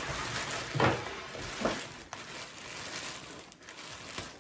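Thin plastic takeout bag crinkling and rustling as gloved hands pull it open over a tray of boiled seafood, with two louder crackles about one and two seconds in.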